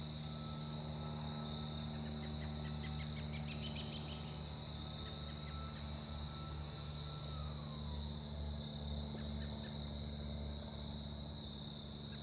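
Steady chorus of crickets and other insects, with a steady low drone underneath from a distant single-engine light aircraft passing high overhead. A faint tone slides down in pitch about seven seconds in.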